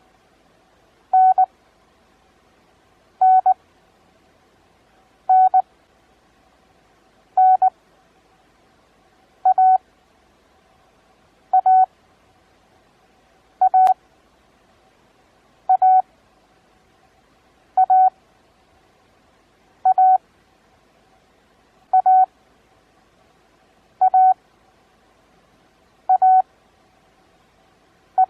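Morse code practice tone: a steady beep at one pitch, keyed at 20 words per minute with Farnsworth spacing. The same two-element letter is sent again and again, about every two seconds.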